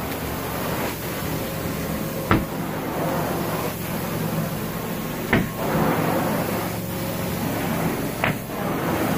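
Carpet-cleaning extraction machine running, a steady hum and hiss, with a sharp knock three times at even intervals of about three seconds.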